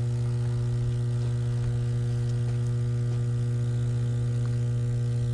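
Steady electrical hum of energized high-voltage substation equipment: a strong, unchanging low drone with a ladder of fainter higher tones.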